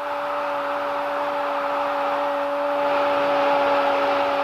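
A football commentator's long, drawn-out 'goooool' cry held on one steady pitch, over a haze of stadium crowd noise.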